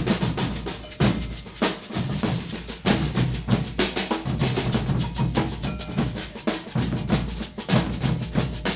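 Brazilian percussion ensemble drumming together: deep bass drums under rapid snare-like strokes in a steady, dense rhythm.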